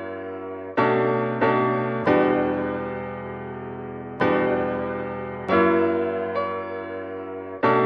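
Background music: slow, soft piano chords, each struck and left to fade before the next.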